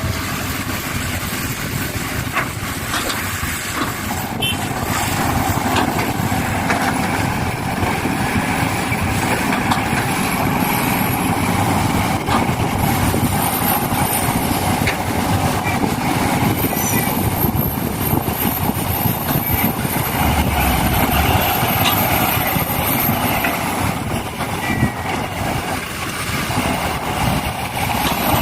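Excavator working: steady machine running noise, with thin high whines that come and go several times.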